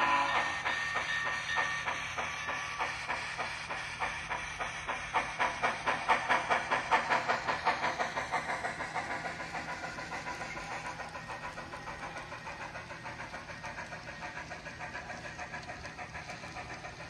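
Sound-equipped N scale model of a Southern Pacific GS-5 steam locomotive chuffing as it pulls a commuter train away, a steady beat of chuffs at about three to four a second. The chuffs are loudest a few seconds in, then quicken a little and fade as it draws off.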